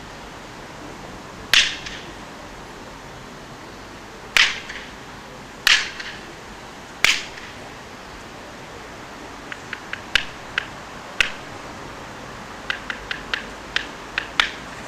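Sharp wooden-sounding clacks? No: sharp clacks, four loud single ones spaced about a second or more apart, then lighter, quicker clicks in small clusters toward the end.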